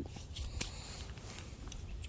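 Faint rustling and handling noise with a few soft clicks, the clearest about half a second in, over a steady low rumble.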